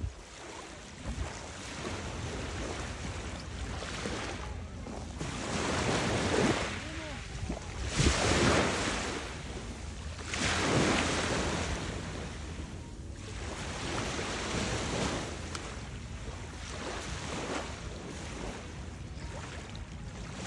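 Small waves breaking and washing up on a sandy beach, the surf swelling and ebbing every two to three seconds, with some wind on the microphone.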